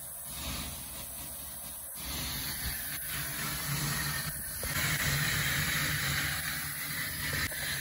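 Self-serve car wash vacuum running, a steady suction hiss over a low motor hum; the hiss grows louder and higher about halfway through.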